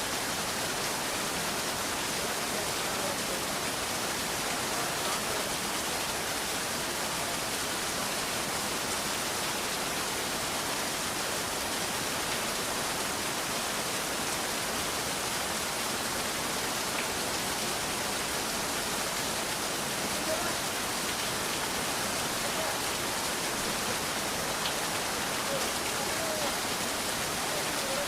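Steady rain: an even, unbroken hiss with no thunder in this stretch.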